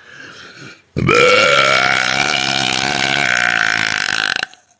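A woman's long, loud burp, starting about a second in and held for about three and a half seconds, rising briefly in pitch at its start and then steady before cutting off.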